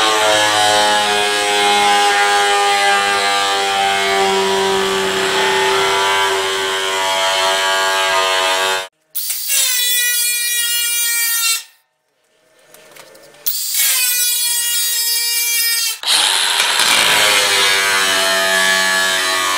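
Angle grinder with a thin cut-off wheel slicing through a sheet-steel roof panel, a loud high whine with a gritty edge. About nine seconds in it cuts off abruptly. Twice the grinder whines steadily and more cleanly, with a short silence between, before the heavy cutting sound returns.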